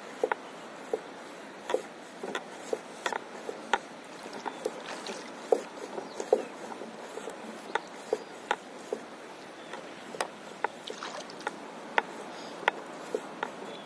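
Small waves lapping against a stand-up paddleboard's hull: irregular light plinks and slaps, one to three a second, over a steady hiss.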